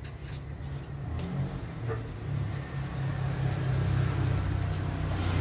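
A motor vehicle's engine running, a low steady hum that grows louder from about a second in.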